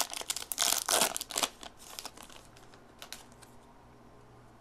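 Crinkling and tearing of a trading-card pack's foil wrapper as it is opened, loudest in the first second and a half, then a few faint clicks of handling.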